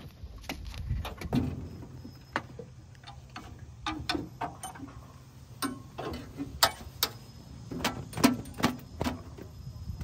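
Scattered, irregular clicks and knocks from hands and a cloth working over a tractor's metal body panels and seat, over a low steady hum.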